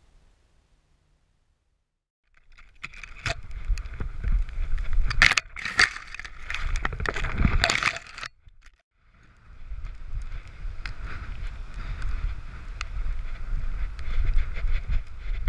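Near silence for about two seconds, then wind buffeting and knocking from a camera strapped to a running dog's harness, with rustling and sharp clicks as the dog bounds through grass. The noise cuts out briefly around eight and a half seconds, then resumes.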